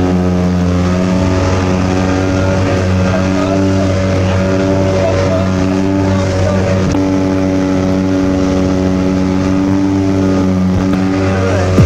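Speedboat engine running steadily at speed, its pitch shifting up and down in steps now and then.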